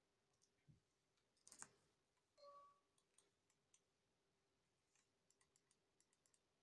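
Faint, quick clicks of a wired optical gaming mouse's buttons, coming in a scattered series through the second half. A brief louder noise comes about a second and a half in, and a short beep about two and a half seconds in.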